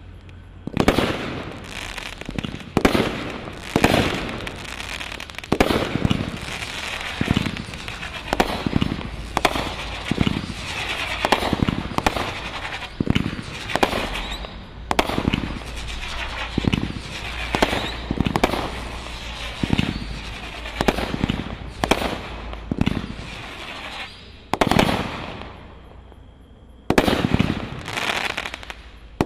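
Brothers Fireworks 'Hustle Bustle' 24-shot 500 g cake firing in sequence: about one shot a second, each a sharp bang, with crackling from the breaks in between. There is a short lull near the end before the last few shots.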